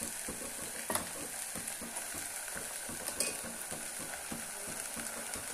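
Marinated mutton sizzling and crackling as it goes into hot mustard oil and fried onions in a pot, stirred with a perforated metal spoon. The spoon clicks against the pot twice.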